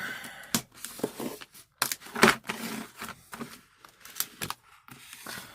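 Stiff plastic blister packaging being cut open: irregular sharp snips and crackling plastic, the loudest a little after two seconds in.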